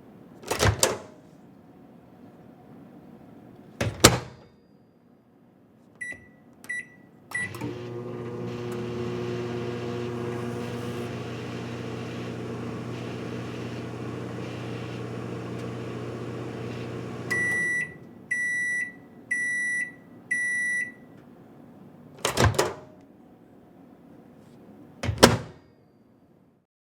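Microwave oven in use: two clunks of the door, three short keypad beeps, then about ten seconds of steady running hum while it heats. Four longer end-of-cycle beeps follow, then two more door clunks.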